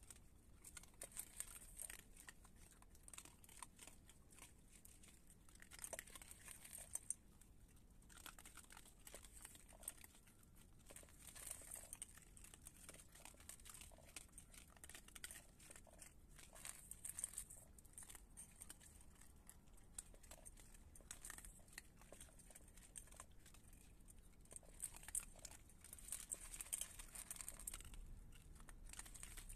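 Raccoons crunching dry kibble. A quiet, steady stream of small crisp crackles and clicks comes in denser clusters every few seconds.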